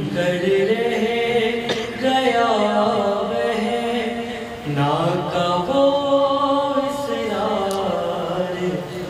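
Solo male voice chanting an Urdu noha, a Shia lamentation, unaccompanied, in long drawn-out melodic phrases.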